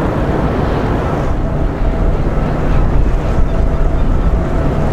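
Large container ship passing under way: a steady low engine rumble, with wind buffeting the microphone.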